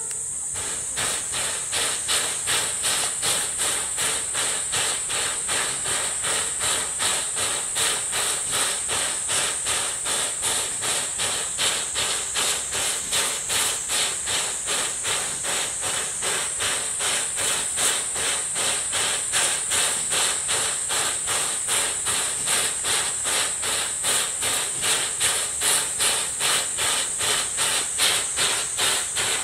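Steam locomotive C11 325 standing and hissing steam, the hiss beating in a fast, even rhythm throughout, over a steady high shrill.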